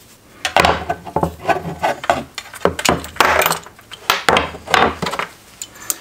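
Small tubing cutter being worked round a metal brake line to cut it: a run of irregular scraping metal-on-metal strokes starting about half a second in, with a sharp click near the end.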